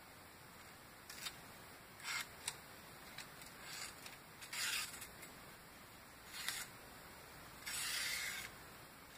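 A sharp knife edge slicing thin strips off a sheet of paper held in the air, heard as about five short papery hisses, the last and longest near the end. This is a paper sharpness test, and the edge is cutting through cleanly.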